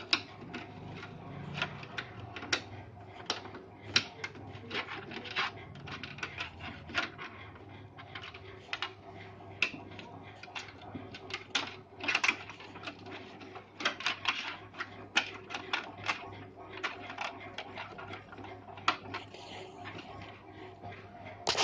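Irregular plastic clicks, taps and rattles of hands working at a laser printer's plastic housing, unplugging the scanner unit's wire connectors, over a faint steady hum.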